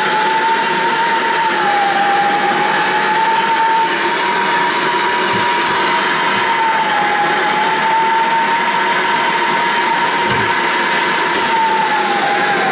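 Plumbing torch burning steadily with a continuous hiss and a slowly wavering whistle, heating soldered copper fittings so they can be moved; a few faint knocks.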